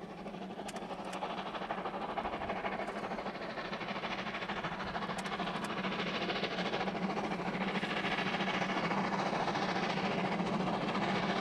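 Steam locomotive approaching with a train, its running sound growing steadily louder.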